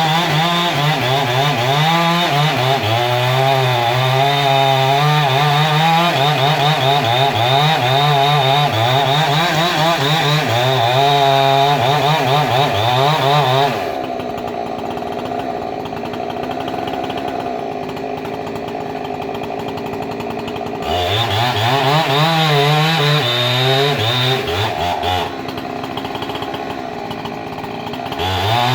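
Chainsaw cutting wood, its engine revving high and wavering as the chain bites. It drops back to idle for several seconds about halfway through, revs up again, idles briefly once more, and revs back up near the end.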